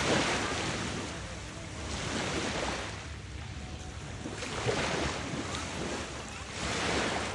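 Small waves breaking and washing up onto a sandy beach, a rush of surf that swells and fades four times, about every two seconds.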